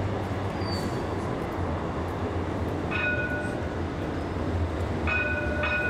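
Steady low rumble of a train at a railway station, with a short high squeal of two notes together about three seconds in and again twice near the end.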